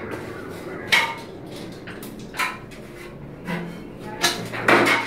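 Someone climbing up and unplugging an electrical plug: a handful of separate knocks and clatters, two of them close together and loudest near the end.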